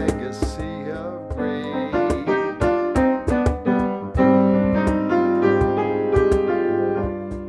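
Upright piano playing an instrumental passage of a song, with a cajón beating out a steady rhythm under it.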